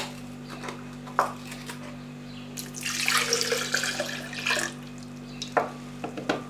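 Milk being poured into a Moulinex blender jug, a steady splashing pour lasting about two seconds around the middle, with a few light knocks of the jug and container being handled before and after.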